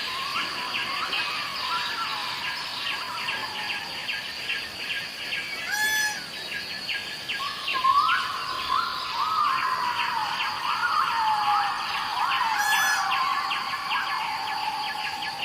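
Forest birds calling over a steady, high insect drone. Many short, swooping calls overlap, and two sharper calls stand out about six seconds apart.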